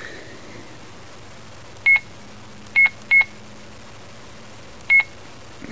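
Four short, high key-press beeps from a digital camcorder as its settings menu is scrolled, two of them close together in the middle.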